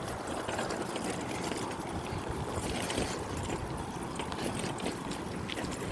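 Steady rushing noise of wind on a phone microphone while moving along a street, with traffic sounds beneath it.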